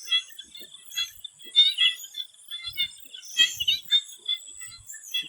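Swamp frogs calling in short, irregular bursts of croaks, about one burst a second, over a steady high-pitched drone.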